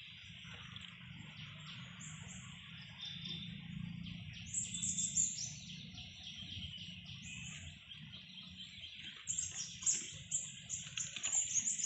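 Birds chirping: short, high calls repeated in quick clusters, busiest about halfway through and again over the last few seconds, over a steady high insect hiss.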